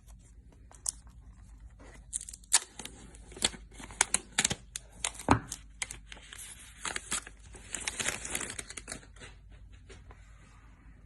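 Packaging being torn open: plastic wrapping ripped and crinkled in a run of sharp snaps and rustles, busiest in the middle and dying down near the end.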